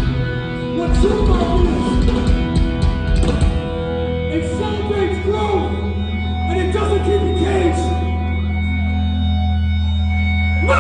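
Live hardcore punk band playing through a theatre PA: guitars and drums until about three and a half seconds in, then a held, ringing chord, with shouted voices over it.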